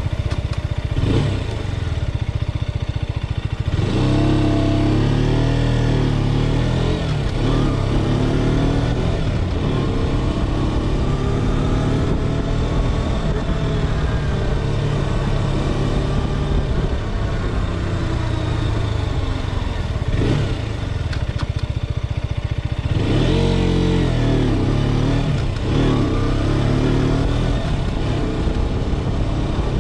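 KTM RC 390's single-cylinder engine running under way, its revs rising and falling again and again as the bike accelerates and shifts through the gears.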